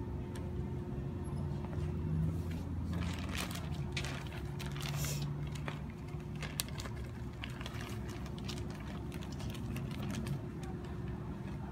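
A plastic bag of terrarium substrate rustling and being handled, with scattered clicks and taps, over a steady low machine hum.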